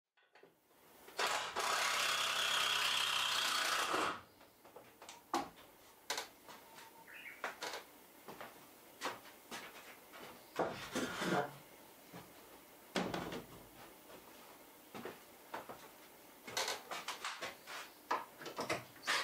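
Hand carpentry on wooden framing: scattered knocks, taps and wood scraping as boards are handled and fitted. A loud, steady rushing noise runs for about three seconds near the start.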